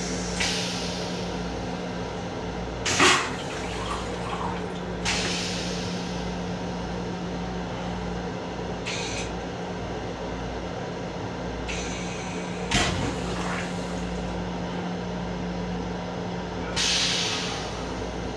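Vacuum toilet in a Metro-North M7 railcar flushing: a loud sharp whoosh about three seconds in as the stainless-steel bowl is sucked empty, with several shorter hissing bursts of air and rinse water before and after it. A steady low hum runs underneath.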